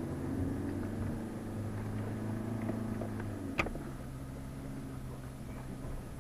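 Off-road 4x4's engine running steadily at low speed, heard from inside the cab, with one sharp knock about three and a half seconds in.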